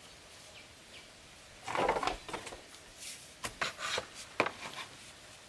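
Bamboo poles scraping and knocking against each other as a long pole is handled and stood upright. A rough scrape comes about two seconds in, followed by a run of sharp wooden knocks, the loudest near the end.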